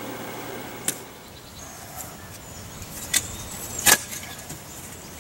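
A shovel striking and scraping into sandy soil while digging out a trench, two sharp strikes about three quarters of a second apart. Before that comes about a second of steady engine hum from a small tractor trenching, which ends with a click.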